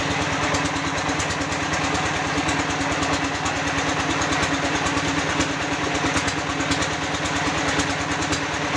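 Small engine running steadily at a fast, even beat.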